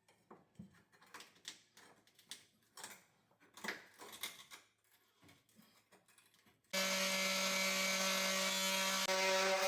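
Scattered knocks and clicks of hand work on wood, then an electric power tool starts abruptly about two-thirds of the way in and runs with a steady, loud buzz, its pitch shifting slightly near the end.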